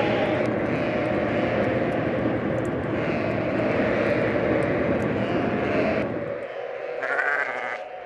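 A flock of sheep bleating together in a steady din, with light clicks through it. It drops away quickly about six seconds in, leaving a quieter stretch with a short higher call near the end.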